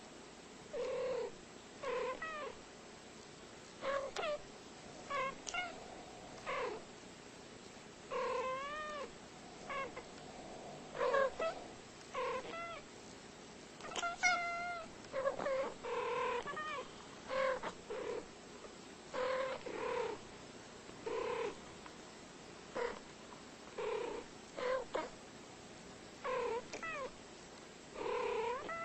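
Two cats trading short meows back and forth, about one call a second, each call bending up and down in pitch.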